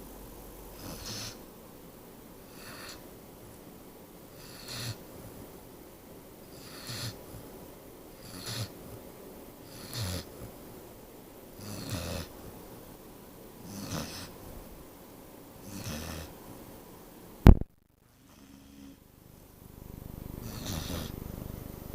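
A sleeping pet snoring, one snore roughly every two seconds. About 17 seconds in a sharp click cuts it off, followed by a brief hush and then a softer steady rumble.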